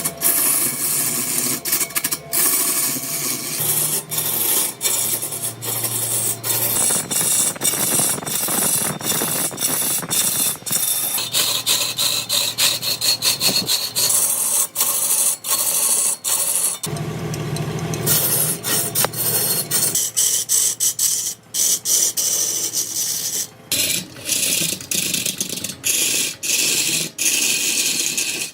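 Tools scraping and rasping on a redwood log, dense with short ticks. The sound changes character every few seconds.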